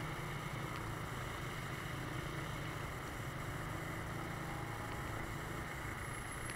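Motorcycle engine running steadily at low speed in traffic, a constant low hum mixed with road and wind noise.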